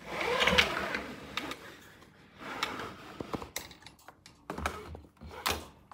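Rustling and scattered sharp clicks and taps from handling and movement, with a burst of rustling in the first second.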